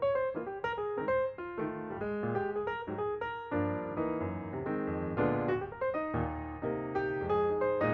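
Background music played on piano or electric piano: a quick melody of short notes over sustained chords.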